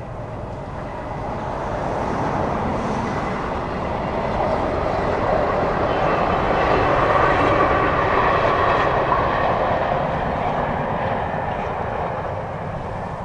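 A Class 47 diesel locomotive passing, towing the steam locomotive Flying Scotsman and its coaches: a steady sound of engine and wheels on rail that grows to its loudest about halfway through and then fades away.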